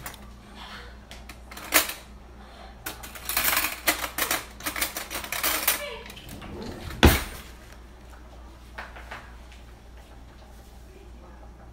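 Kitchen clatter of utensils and cookware: a sharp click, then a quick run of rapid clicks and knocks, and one loud knock about seven seconds in, over a low steady hum.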